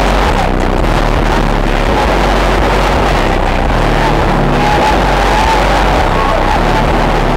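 Car engine held at high revs, loud and steady, with crowd noise around it.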